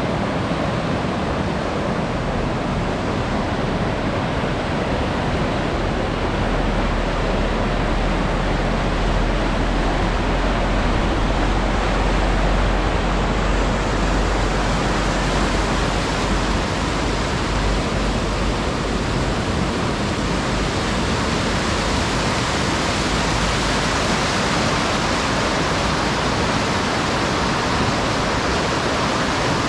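Whitewater rapids of a fast, glacier-fed mountain river rushing over stones and boulders: a loud, steady rushing noise, with a deeper low rumble stronger in the first half.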